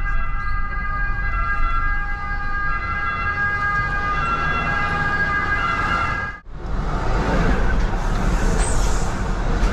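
Heard from inside a car's cabin: a steady high squeal of several tones over low road rumble. After an abrupt break, a tram passes close alongside with a broad rushing noise.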